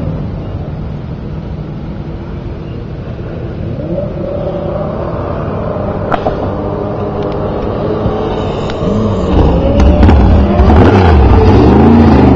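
Open-wheel modified race car's engine on a practice lap, its pitch rising and falling as it is revved up and backed off through the turns. It grows steadily louder as the car comes closer and is loudest near the end, as it runs close past.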